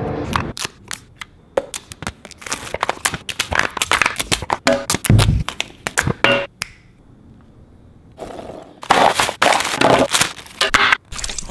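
Quick run of sharp clicks and cracks from AirPods Pro boxes being handled and the charging case's lid snapping, ending in a snap about six and a half seconds in. After a short lull comes crinkling of a plastic wrapper being pulled open.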